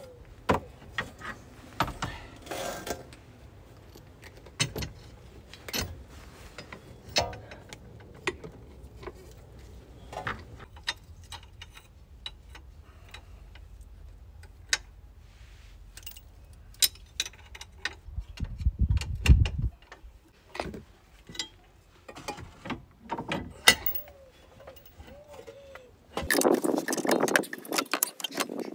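Hand tools and steel suspension and brake parts clinking and knocking at a car's bare rear wheel hub, in scattered clicks and knocks, with a louder, longer clatter near the end.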